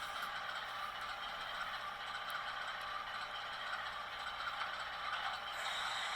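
Sound decoder in an HO-scale Atlas Dash 8-40CW model locomotive playing a steady GE diesel engine sound through the model's small speaker.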